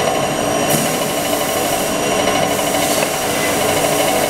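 Pin grinding machine running: a steady mechanical hum with several held tones, and a high hiss that comes in under a second in, drops briefly around two seconds, then returns.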